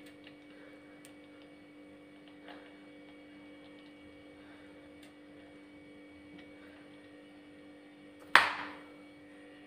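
Faint steady hum with a few soft ticks. About eight seconds in comes one sudden loud hissing burst that fades over about half a second.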